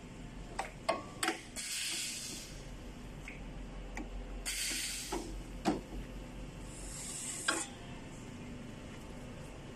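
Sheet metal being handled on an electromagnetic sheet metal folder: a handful of sharp metallic clicks and knocks from the clamp bar and handle, and three short hissing scrapes of less than a second each.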